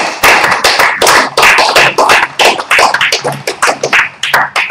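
Audience applauding: a loud, dense run of hand claps.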